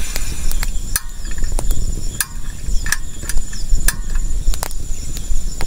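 Crickets chirping in a steady, continuous high trill, with scattered sharp clicks and knocks over it.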